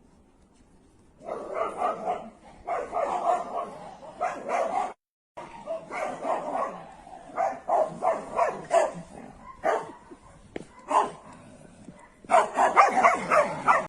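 A dog barking in runs of short, quick calls, with a brief dropout about five seconds in.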